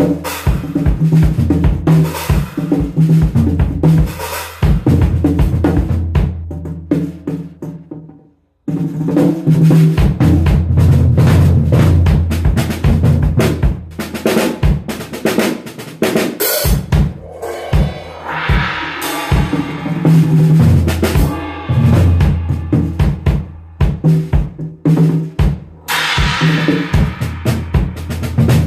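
Acoustic drum kit played in quick patterns of bass drum, snare and toms with cymbal crashes. It stops briefly about eight seconds in, and the cymbals ring out more strongly about two-thirds of the way through and again near the end.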